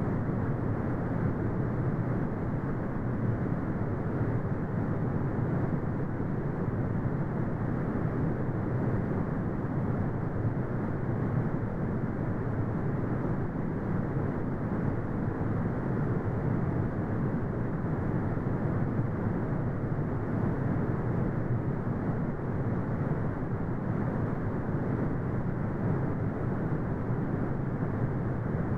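Brown noise: a steady, deep rumbling hiss with no tones or changes, its energy heaviest in the low end and cut off above the upper mids.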